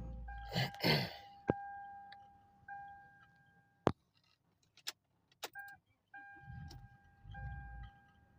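A car's warning chime beeping repeatedly in short on-off pulses, with a rattling clatter like keys about a second in and several sharp clicks. A low rumble swells twice near the end.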